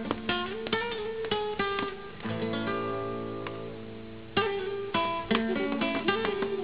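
Background score of acoustic guitar picking single notes, with one chord left ringing and fading for about two seconds in the middle before the picking resumes.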